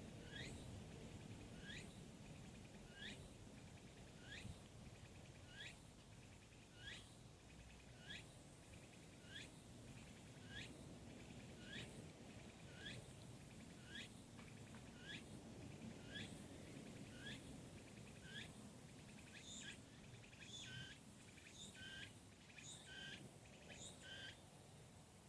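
A bird calling faintly: a short rising chirp repeated about once every second and a bit, turning into quicker, higher chirps near the end.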